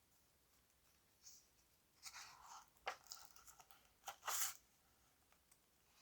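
Paper rustling as a book page is turned, with a couple of short taps and scrapes, the loudest about four seconds in.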